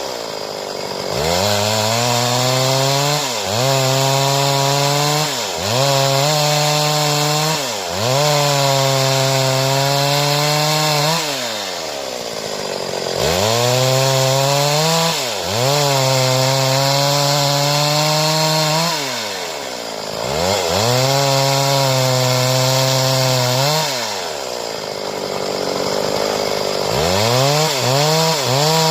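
Stihl two-stroke chainsaw cutting boards. The engine is repeatedly revved up to full throttle for cuts of one to four seconds, then drops back toward idle between cuts.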